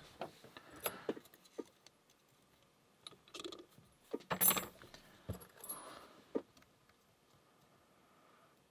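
Small metal lock-picking tools clicking and rattling against each other and the padlock as picks are switched, in scattered short clicks. The loudest clink comes about four and a half seconds in.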